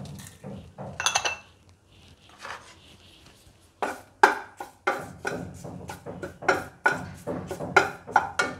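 Wooden spatula stirring curry leaves in a nonstick kadai, knocking and scraping against the pan in quick, irregular strokes from about four seconds in. A single ringing clink comes about a second in.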